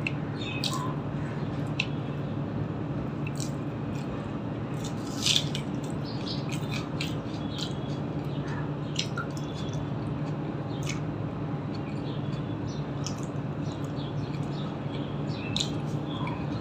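Bare fingers mashing and mixing rice with mutton fat curry on a steel plate: soft wet squishing with scattered light clicks, and one louder clatter about five seconds in, over a steady low hum.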